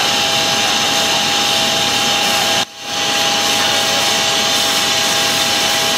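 Fire apparatus running hard, its engine driving the pump that supplies the hose lines: a loud, steady roar with a steady tone over it. It cuts out for a moment about two and a half seconds in.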